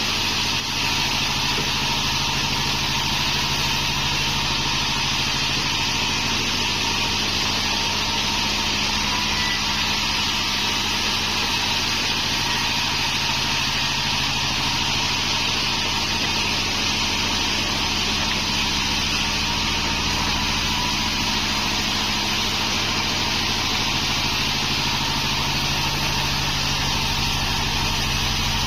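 Pandan band sawmill running steadily while sawing waru (hibiscus) wood: a low machine hum under a loud, even hiss from the blade.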